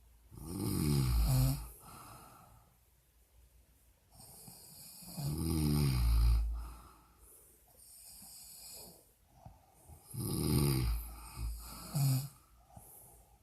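A sleeping woman snoring loudly: three long snores about five seconds apart, their pitch bending as each one goes, and a short one near the end.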